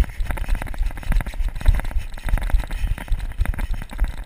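A person running over gravel and grass, with quick, irregular footfalls and heavy thuds.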